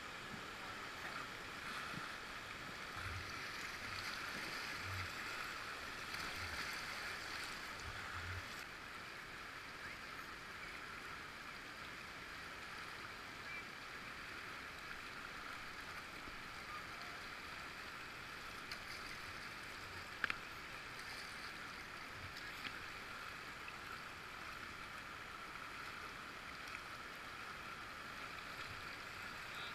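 Steady rush of flowing river water, with a few soft low thumps in the first several seconds and a single sharp click about twenty seconds in.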